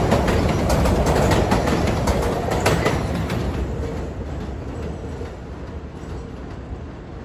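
New York City subway train passing close on an elevated track, its wheels clicking rapidly over the rail joints. About three seconds in the clicking thins out and the sound fades as the train pulls away.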